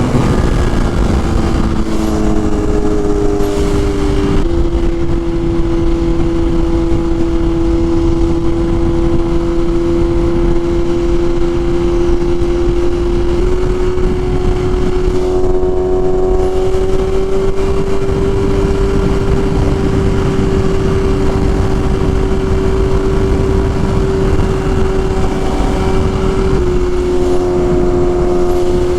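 BMW S1000RR inline-four sportbike engine running at fairly constant revs while riding, under a steady rush of noise. Its pitch shifts abruptly a few times, about four seconds in, near the middle and near the end.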